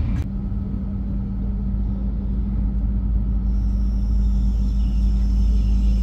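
Tokaido Shinkansen N700S train running, heard from inside the car: a steady low rumble with a steady hum, and a faint high-pitched whine that comes in about halfway.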